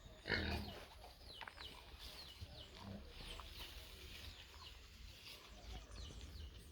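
Chickens clucking faintly, with many short high chirps scattered through.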